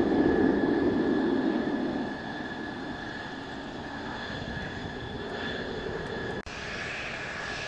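Mitsubishi F-2's single F110 turbofan rumbling as the fighter climbs away after an afterburner takeoff. It is loudest for about the first two seconds, then fades to a steady distant roar, with a steady high whine underneath. The sound cuts out for an instant near the end.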